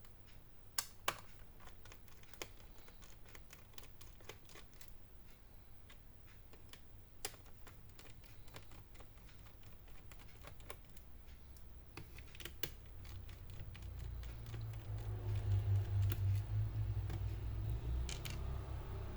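Scattered small clicks and taps of a screwdriver and screws against the plastic case of an Asus X452E laptop as its screws are taken out. A low rumble builds over the last few seconds and is the loudest part.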